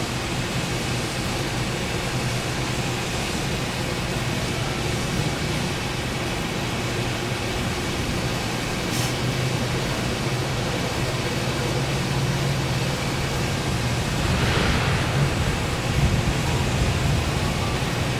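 Steady noise of factory machinery with a low, even hum. A brief high hiss comes about nine seconds in, and a louder rushing swell comes near the end.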